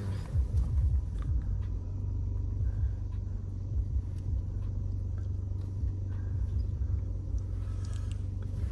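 Low, steady rumble of a MINI car being driven, heard from inside the cabin.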